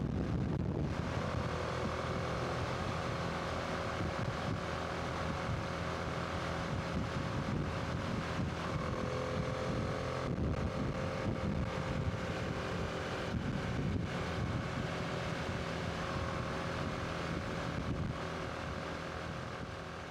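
Honda Transalp motorcycle riding at a steady speed: the engine runs evenly under wind rushing over the microphone. The sound fades out near the end.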